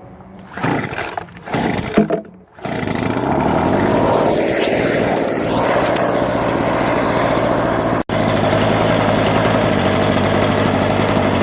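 Two-stroke leaf blower engine being started: a few short sputtering bursts, then about two and a half seconds in it catches and runs steadily at speed. It runs on a new spark plug and fresh fuel mix, the fix for it not starting on cold days.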